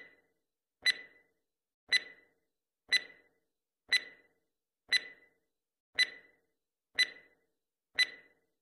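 Countdown timer sound effect: one short, bright, ringing tick each second, nine in all.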